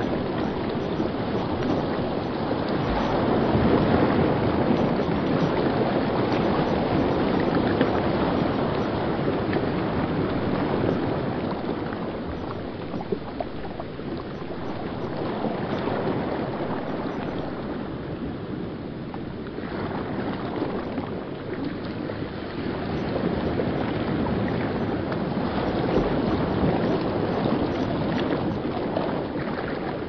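River water rushing and churning over rocks in a shallow rapid. It makes a steady full rush that swells and eases a little in loudness.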